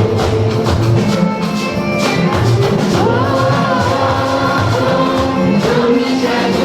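Music with singing, in the manner of a gospel choir, over a steady low beat.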